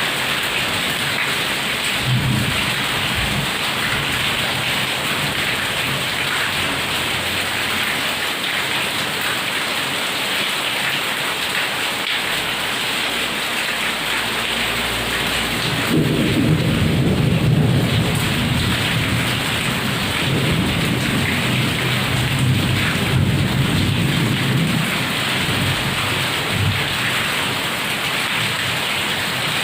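Heavy rain falling steadily, with a short roll of thunder about two seconds in and a longer, louder rumble of thunder from about the middle of the stretch that fades out over several seconds.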